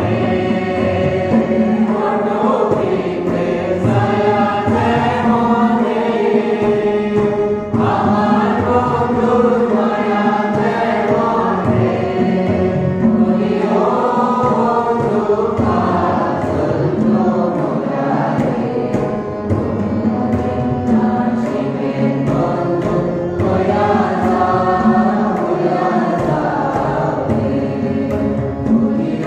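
Group of voices singing, with a steady low drone held underneath.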